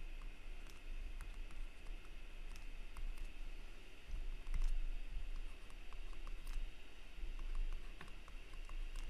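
Irregular light clicks and taps of a stylus on a tablet as an equation is handwritten, over a low steady electrical hum.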